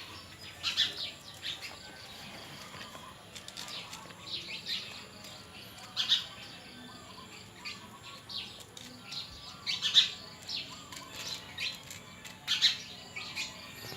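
Small birds chirping in short, high, quick bursts every few seconds, with the loudest clusters about ten seconds in and again near the end.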